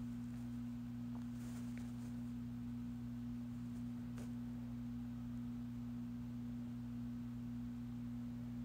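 A steady low hum made of two even tones, one an octave above the other. A few faint ticks sound over it as a paintbrush works paint on the palette.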